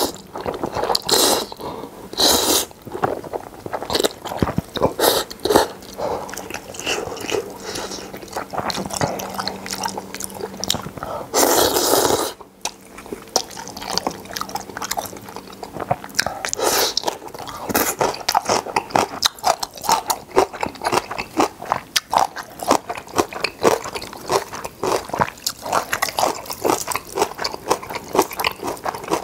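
Close-miked eating of instant ramen noodles: long wet slurps as mouthfuls of noodles are sucked in, a few near the start and a longer one about eleven seconds in, between stretches of open-mouthed chewing with rapid wet clicks and smacks that grow busier in the second half.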